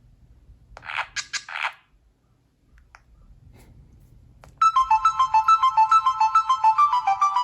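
Sony Ericsson W950i phone playing one of its built-in ringtones: a fast, repeating melody of bright synthesized notes that starts abruptly about four and a half seconds in. Before it, about a second in, comes a short cluster of clicks.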